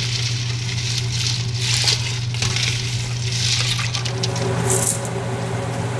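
Water splashing and sloshing in several short spells as cut potato fries are moved about in a bowl of ice water. Under it runs the steady low hum of a Harvest Right freeze dryer.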